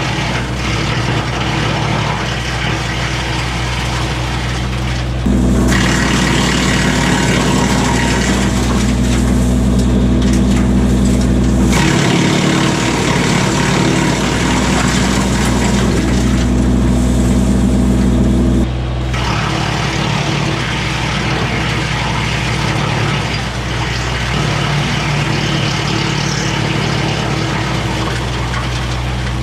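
Kubota LX2610 compact tractor engine running the PTO-driven BECO 4-inch wood chipper, a steady machinery drone. The engine note changes and grows louder for about thirteen seconds in the middle, then settles back.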